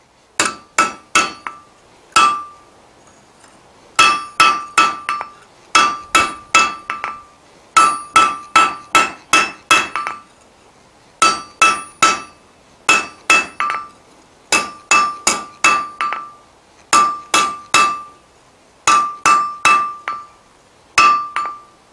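Hand hammer striking a glowing bar of square mild steel on an anvil to chamfer its edges. The blows come in quick groups of three to six, with short pauses between groups. Each blow sets the anvil ringing with a clear metallic tone.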